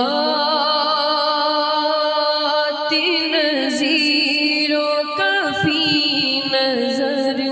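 A solo voice singing an unaccompanied naat, a devotional Islamic song, in long held notes with gliding, ornamented turns and no instruments.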